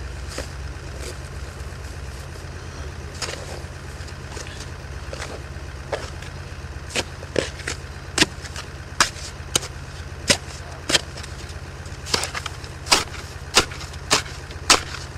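Small hand shovel scraping and chopping into packed snow and frozen soil around a car's wheel to dig the stuck car free. The strokes begin about six seconds in, come roughly once a second and get louder near the end. A car engine idles underneath as a steady low hum.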